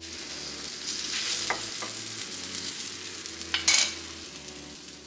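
Ripe plantain slices sizzling in a hot square frying pan: a steady hiss, with a couple of faint taps and one louder brief knock about three and a half seconds in.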